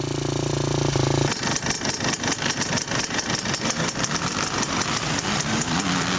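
Off-road vehicle engine held at a steady speed for about a second, then dropping into a rough, pulsing run at lower speed, picking up a little near the end.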